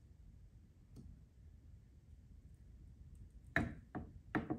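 Mostly quiet strain on a click-type torque wrench tightening a Galil rifle barrel into its receiver, then a short run of sharp clicks about three and a half seconds in: the wrench clicking as it reaches its set torque of about 130 foot-pounds.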